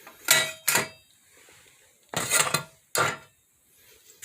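Old glassware clinking and clattering as it is handled: a handful of sharp knocks in small groups, each with a brief ring.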